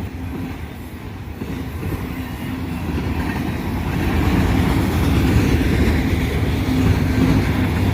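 Union Pacific GE Tier 4 GEVO locomotive, the rear distributed power unit of a freight train, rumbling closer and growing louder, with wheels clacking over the rail joints. Its bell is ringing.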